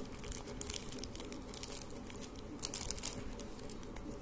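Small clear plastic bag crinkling in the hands, a run of irregular crackles that thins out near the end.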